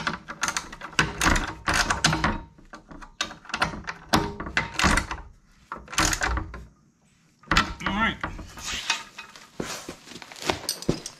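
A wrench working on the bolts of a steel sulky bracket: irregular metal clinks, knocks and scraping in short bursts, with a brief pause about seven seconds in.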